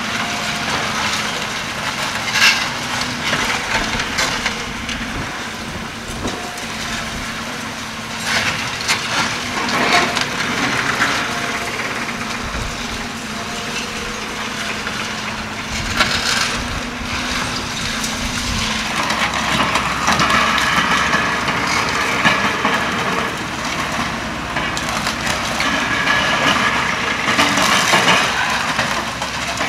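Building demolition: debris being crushed and broken, with repeated crunching and cracking. A steady machine hum runs underneath and stops about two-thirds of the way through.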